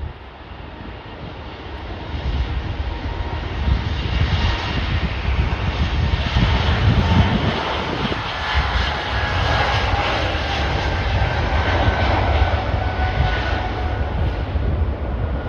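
Jet airliner engines passing by: a rumble and whine that builds over the first few seconds and stays loud, with high whining tones that slowly fall in pitch.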